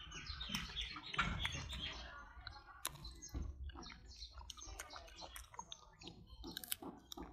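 Short high chirps and squeaks for the first two seconds, then scattered sharp clicks and crunches as an adult golden snub-nosed monkey bites into a piece of fruit.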